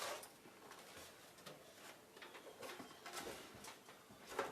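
Faint handling noise of packaging being pulled off a PC case: scattered light rustles, scrapes and taps of styrofoam and wrapping.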